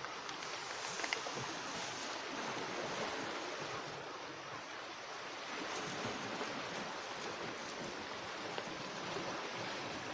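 Sea surf washing on a rocky shore: a steady, unbroken hiss.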